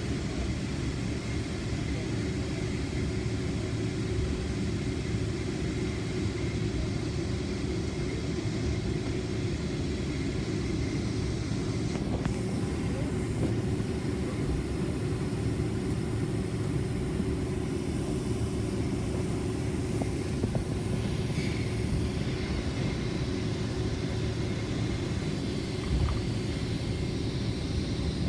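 Cabin noise inside a Boeing 767-400ER on the ground with its engines running: a steady low rumble with a faint constant hum. There is a brief knock about 26 seconds in.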